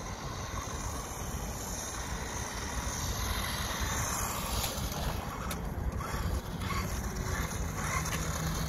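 Wind rumbling on the microphone, with a 1:12 scale 4WD electric RC buggy driving over paving stones, its motor and tyres a little louder from about three seconds in as it comes closer.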